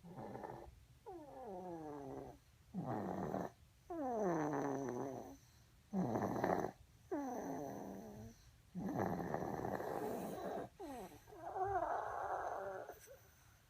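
A sleeping pet snoring in a steady run of breaths about every second and a half. The breaths alternate between a whistling tone that slides down in pitch and a rougher, raspier breath.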